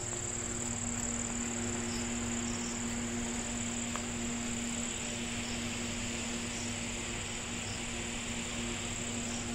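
Crickets trilling steadily in a high, unbroken band, with a low steady drone underneath that stops about five seconds in.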